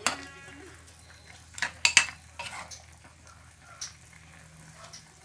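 A spatula stirring chicken in a pan of soy-sauce broth that is reducing until nearly dry, over a low sizzle. It scrapes and knocks against the pan several times, loudest about two seconds in.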